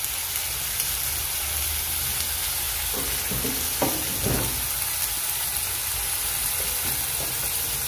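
Small fish shallow-frying in hot oil in an aluminium kadai, giving a steady sizzle.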